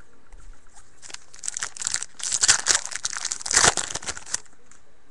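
Wrapper of a 2010-11 SP Authentic hockey card pack crinkling as it is opened, a dense run of crackles from about a second in until near the end.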